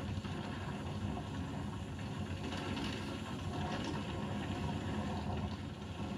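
Steady rushing, rumbling ride noise from GoPro Hero 7 bike-ride footage, played back through a TV's speakers.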